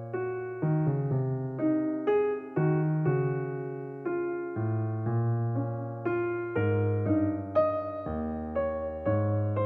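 Soft background piano music: gentle chords and a slow melody, each note struck and fading, over sustained bass notes.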